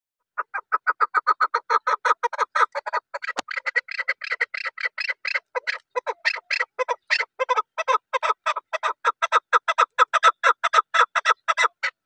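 Chukar partridge calling in a long, unbroken run of short notes, about five to seven a second.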